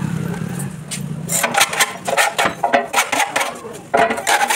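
A 12V cordless drill running as it bores through an aluminium door profile; it stops about a second in. A hand file then rasps along the edge of the aluminium profile in quick strokes, about three a second.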